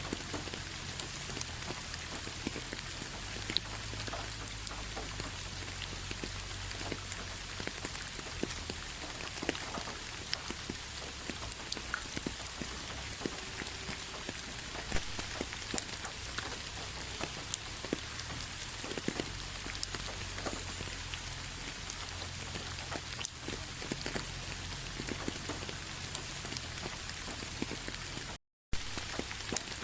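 Steady rain falling, with individual drops ticking over an even hiss. About 28 seconds in the sound cuts out completely for a fraction of a second, then resumes.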